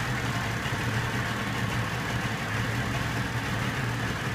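Nissan 40 hp three-cylinder, oil-injected two-stroke outboard motor idling steadily, freshly started.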